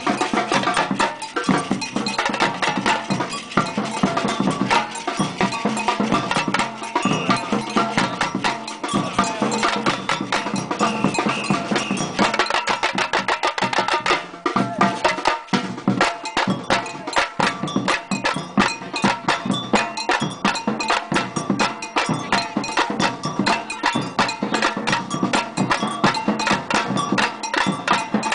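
Batucada percussion ensemble playing a samba rhythm: a dense, fast, unbroken stream of drum strokes with bright bell strokes over them, briefly thinning about halfway through.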